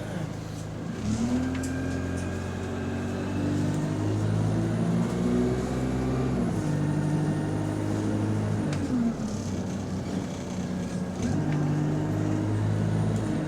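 Bus engine heard from inside the bus, pulling away and accelerating, its pitch rising, holding and falling back in steps as the bus goes through the gears. The gearbox is in limp mode, with no kickdown. A faint high whine runs through the middle.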